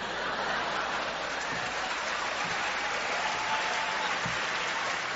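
Audience applauding, swelling quickly at the start, holding steady, and beginning to fade near the end.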